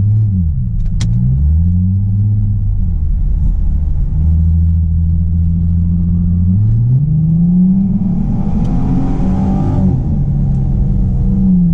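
Ford Mustang engine heard from inside the cabin, blipped up and down a few times, settling to a steady low speed, then revved up and held high for a couple of seconds before dropping back near the end. Loud and running cleanly after its repairs.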